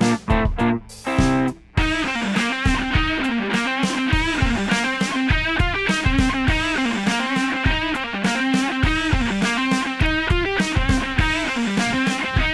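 Backing music with overdriven electric guitar, bass and programmed drums: a few stop-start hits, then a steady funk groove from about two seconds in. The guitar and bass are played through a 1956 Montgomery Ward tube guitar amp.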